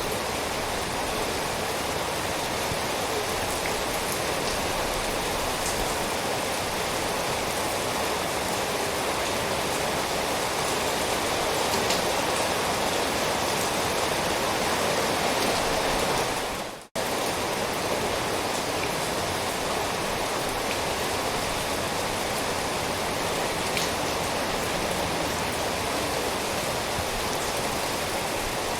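Steady heavy rain, a dense even hiss with scattered drop ticks. About seventeen seconds in it dips briefly almost to silence and cuts straight back in.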